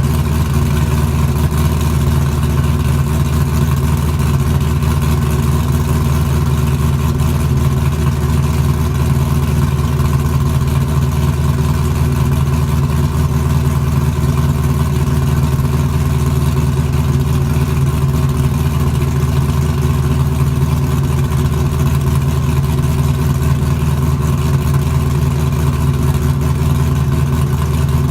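LS1 5.7-litre V8 idling steadily through an exhaust with no rear mufflers, less than two minutes after a cold start and running without a tune.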